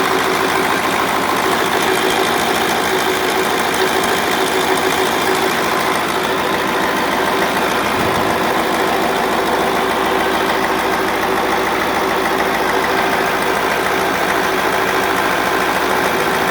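YaMZ-7511 V8 turbo-diesel engine running at a steady speed, with its cooling fan on a permanent drive.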